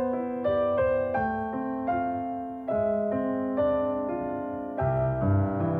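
Piano music, single notes and chords struck at a gentle, even pace and left to ring; deeper bass notes come in near the end.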